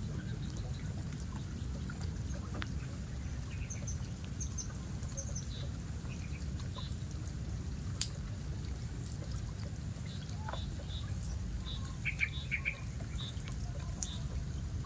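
Small birds chirping now and then, short high calls scattered throughout and a denser run of chirps near the end, over a steady low rumble.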